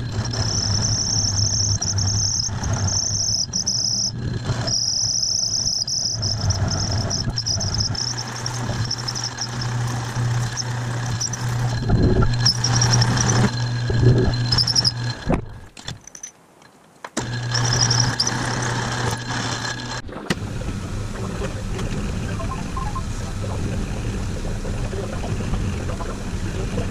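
Metal lathe running and turning an aluminium gas-cap part: a steady motor hum, with the cutting tool giving a high whine that comes and goes in the first few seconds. The sound drops away briefly about sixteen seconds in. From about twenty seconds a milling machine runs steadily with the aluminium ring clamped under its spindle.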